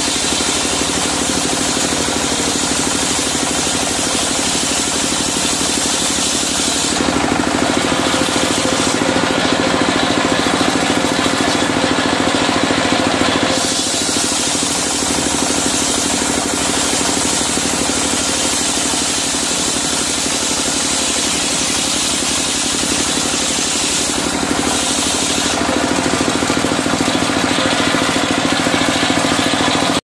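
Single-cylinder diesel engine running steadily with a rapid chugging pulse, driving a circular sawmill blade through medang kuning wood. The pitch of the sound shifts twice, about seven seconds in and again near the end, as the blade's load changes.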